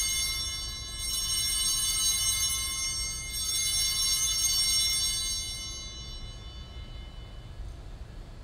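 Altar bells rung at the elevation of the consecrated host, marking the consecration. They are rung again about a second in and about three and a half seconds in, then the ringing fades away.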